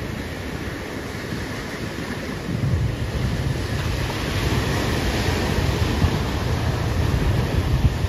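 Wind buffeting the microphone over the wash of surf on a beach, the wind rumble growing stronger from about two and a half seconds in.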